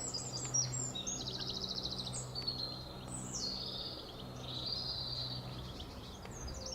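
Songbirds singing, a mix of fast trills, short chirps and falling whistled notes, over a steady low hum that fades out near the end.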